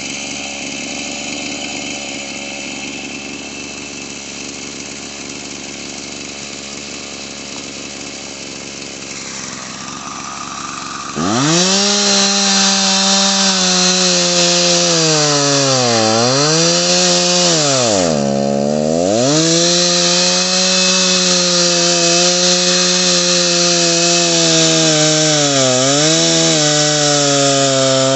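Two-stroke chainsaw sawing into a dead tree. It runs quieter at first, then about eleven seconds in it opens to full throttle with a loud, high engine note. Three times the note sags in pitch and recovers as the chain bogs down under load in the wood.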